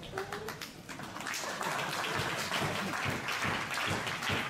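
Wrestling crowd applauding: a few scattered claps at first, then clapping swelling into steady applause about a second and a half in.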